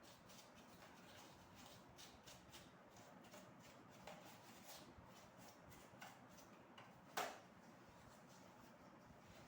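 Near silence with faint, scattered clicks and light taps, and one sharper click about seven seconds in.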